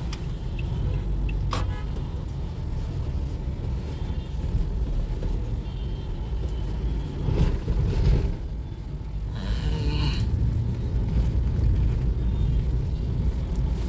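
Low, steady road and traffic rumble heard inside the cabin of a Toyota Aqua hybrid crawling in slow traffic. It swells briefly about eight seconds in, and a short pitched sound comes in around ten seconds.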